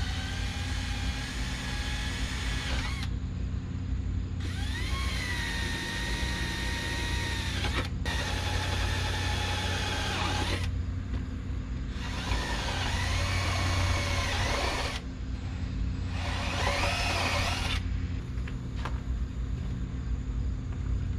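Cordless drill running in about five separate bursts of a few seconds each, its motor whine dipping and rising in pitch as the bit loads up in the holes being drilled. A steady low hum runs under it.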